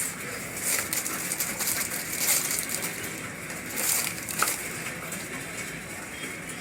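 Rustling and crinkling from handling the new charging jack and its packet on the repair bench, in a few short bursts, with a sharp click about four and a half seconds in.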